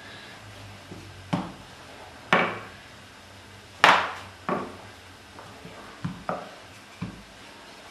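Wooden rolling pin knocking against a marble worktop as dough is rolled out: a series of sharp, irregular knocks, the loudest about four seconds in.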